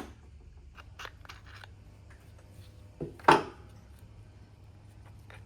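Small metal cover being worked loose from a Honda GL1000 engine case by hand: a few light clicks about a second in, then a knock and one sharp clack a little after three seconds in.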